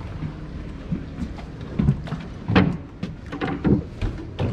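Irregular wooden knocks and thumps of a gondola coming alongside a landing stage as passengers climb out, over a steady low rumble.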